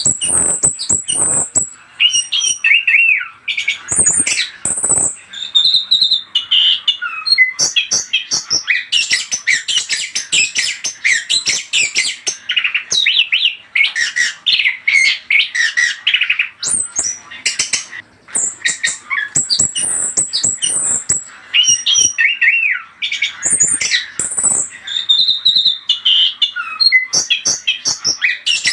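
Chestnut-capped thrush (anis kembang) singing: a fast, varied run of whistles, trills and harsh chattering notes, broken by brief pauses.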